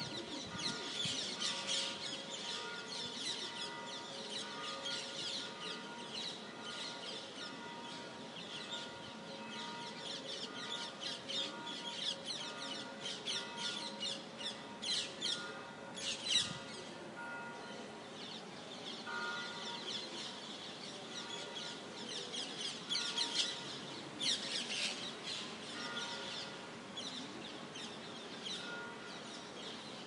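A flock of parakeets calling: many high-pitched chattering calls overlap without pause, and a few louder clusters of calls stand out about halfway through and again later.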